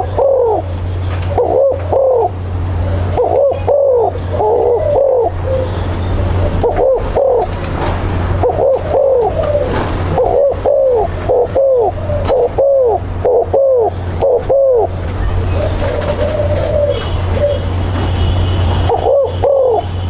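Spotted dove cooing repeatedly in short phrases of low, arched notes, easing off for a few seconds near the end before cooing again. A steady low hum runs underneath.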